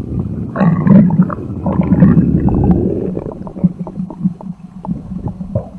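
Stomach growling sound effect: a loud gurgling rumble that swells about half a second in and runs for a couple of seconds, then thins into fainter bubbly gurgles and small pops.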